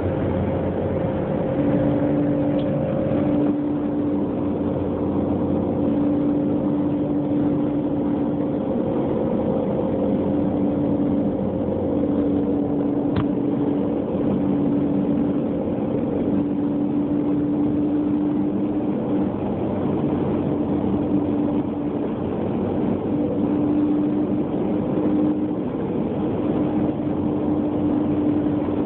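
2000 Jeep Grand Cherokee running, a steady rumble with a pitched drone that holds for several seconds at a time and briefly drops out now and then: the odd noise the vehicle is making.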